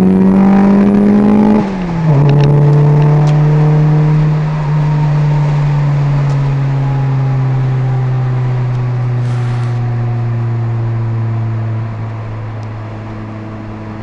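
Car engine revving up under hard acceleration, then the throttle closes just under two seconds in and the revs drop sharply. The engine note then falls slowly and steadily as the car slows after the pull.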